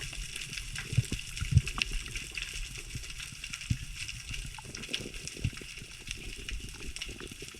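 Underwater ambience: a steady crackle of tiny clicks with scattered low knocks and bumps.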